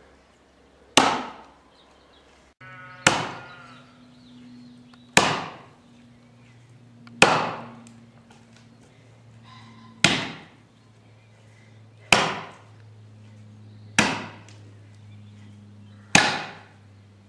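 An axe biting into a log in an underhand chop, eight sharp strikes about two seconds apart. A faint low steady hum comes in about two and a half seconds in.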